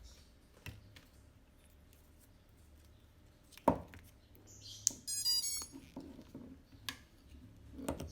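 Clicks and knocks from handling small hardware, with one louder knock about three and a half seconds in. About five seconds in comes a short run of quick electronic beeps stepping through several pitches.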